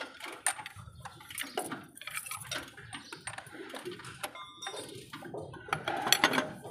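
Hand ratchet with a socket on a long extension working a mounting bolt on a truck chassis: irregular metallic clicks and clinks of the tools.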